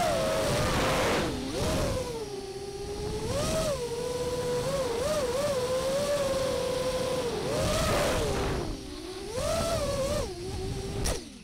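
FPV racing quadcopter's brushless motors and propellers whining, recorded on board, the pitch rising and falling with each throttle change as it flies. Near the end there is a sharp knock and the motor sound cuts off.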